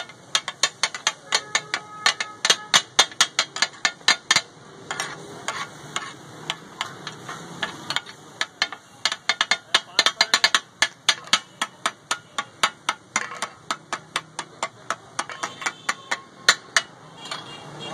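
Metal spatulas clattering on a large flat griddle (tawa) as fish katakut is chopped and tossed: a fast, uneven run of sharp metallic clacks, several a second, in runs with brief lulls. This clatter is what gives katakut its name.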